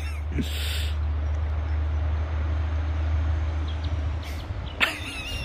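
A dog wading in a shallow, stony river, with a short splash about five seconds in, over a steady low rumble.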